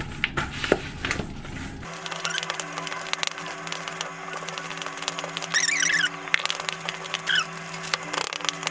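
A spoon scraping and clicking against a stainless steel mixing bowl as a thick butter, brown sugar and cinnamon filling is stirred, with a brief squeak a little past the middle. A steady low hum comes in about two seconds in.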